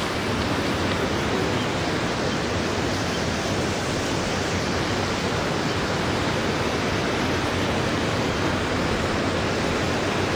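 Steady, even rush of running water, without a break.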